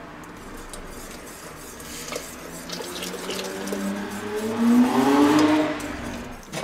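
Wire whisk stirring sauce in a stainless steel pot as cream is poured in, with a few clicks of the whisk against the pot. About four and a half seconds in, a rising tone swells to the loudest point and then fades.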